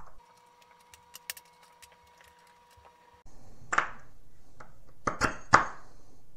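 Small pliers and grey plastic staircase pieces clicking and tapping as an axle pin is pushed back through them: a few sharp clicks in the second half. Before that, about three seconds of near silence with a faint steady tone.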